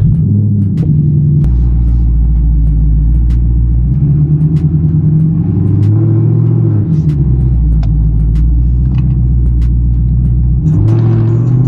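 Ford Mustang GT's 5.0-litre V8 running under light throttle at low speed, heard from inside the cabin; the deep engine note rises and falls several times as the car rolls off.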